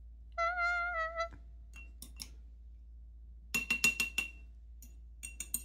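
A brief high tone lasting about a second, steady with a slight dip in pitch near its end. After it come clusters of sharp clicks and clinks of small hard objects with a glassy ring; the loudest cluster is about six quick clinks in the middle, and a few more come near the end.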